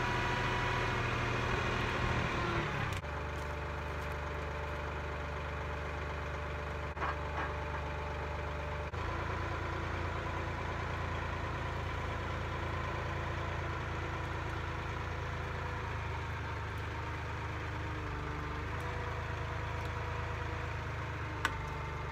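Massey Ferguson 1835 compact tractor's diesel engine running, dropping to a lower, steady idle about three seconds in.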